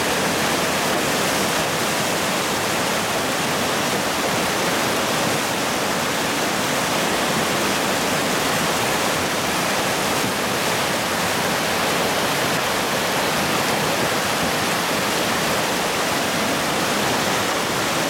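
Whitewater rapids rushing steadily: a loud, even wash of churning river water.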